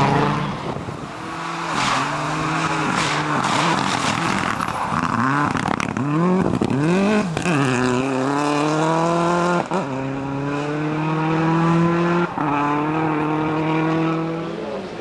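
Ford Escort World Rally Car's turbocharged 2.0-litre engine revving hard on a gravel stage, the pitch swooping down and up through several shifts and slides, then climbing steadily as it accelerates away, with brief breaks at upshifts about ten and twelve seconds in.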